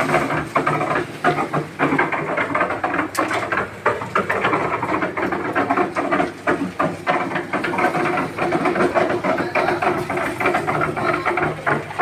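Portable drum concrete mixer running while it mixes a batch of gravel, sand, cement and water. A steady drone sits under constant clattering of stones tumbling in the turning drum.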